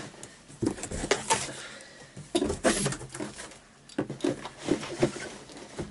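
Large cardboard shipping box being opened and rummaged through by hand: flaps flexing and rustling, with irregular knocks and scrapes.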